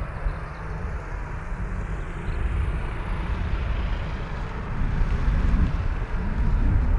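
Distant Boeing 737-800 jet engines at low taxi power, a steady hiss, under uneven low rumble of wind buffeting the microphone that grows stronger in the second half.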